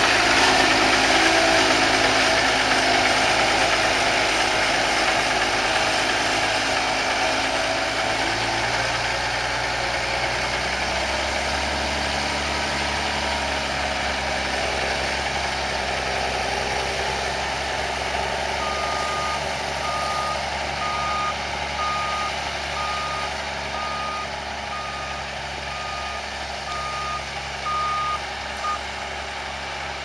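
New Holland T7040 tractor engine running under load, loudest at first and fading steadily as the tractor and grain trailer move off. In the second half, a reversing alarm sounds about a dozen evenly spaced short beeps, roughly one a second.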